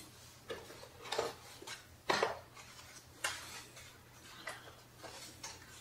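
Scattered light clicks and clatters of packaging being handled as a phono cartridge is unpacked, the loudest about two seconds in.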